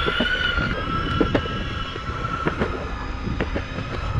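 Electric skateboard under way: a steady high motor whine that wavers slightly in pitch, with irregular clicks and knocks from the wheels rolling over the pavement.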